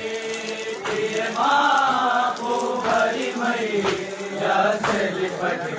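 Several men chanting a nauha, a Shia lament, together in a hall, with a few sharp thumps cutting through the chant.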